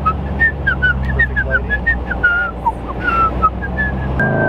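A man whistling a tune in short, gliding notes over the low, steady idle of a Lamborghini Urus twin-turbo V8, its exhaust valves closed in Strada mode.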